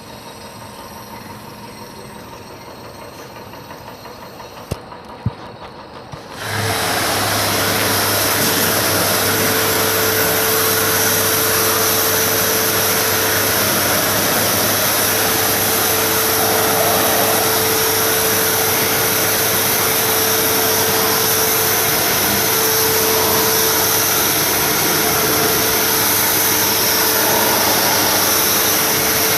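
A pressure washer switched on about six seconds in after two clicks, then running steadily: a motor-driven pump humming under loud, even spray hiss, as used to wash the coil of an air-conditioner outdoor unit.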